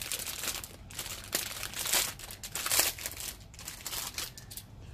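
Thin clear plastic parts bag crinkling as it is handled and opened to take out a model-kit runner, an irregular run of rustling crackles.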